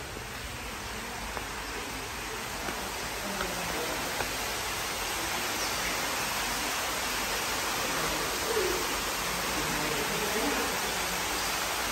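Water running and splashing steadily in a holy-water fountain basin, growing slowly louder as it is approached. Faint voices murmur underneath in the second half.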